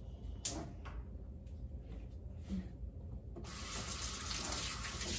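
Kitchen faucet turned on and running steadily into the sink, starting about three and a half seconds in, after a few light knocks and clicks.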